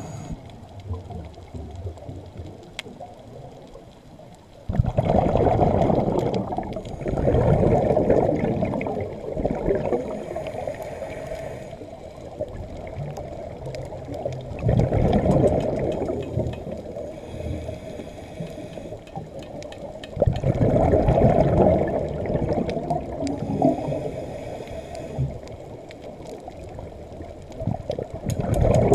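Scuba regulator exhaust bubbles gurgling past the camera underwater in loud bursts of one to two seconds, recurring every several seconds with each exhaled breath, over a low, steady underwater hiss.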